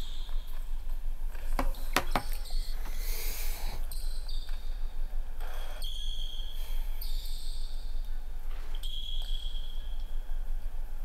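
Basketball dribbled on a hardwood gym floor, with a few sharp bounces about two seconds in, and sneakers squeaking on the floor as the players cut, over a steady low hum.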